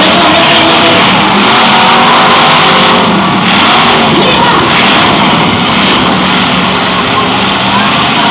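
Several V8 demolition-derby cars running and revving together, engine pitch rising and falling as they push against each other; very loud and continuous.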